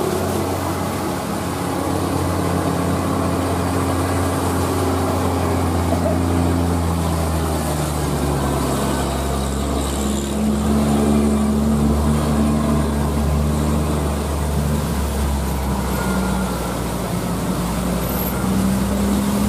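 Heavy diesel truck engine labouring up a steep grade while hauling a shipping container: a steady low drone whose pitch shifts slowly, getting a little louder about halfway through as the truck passes close.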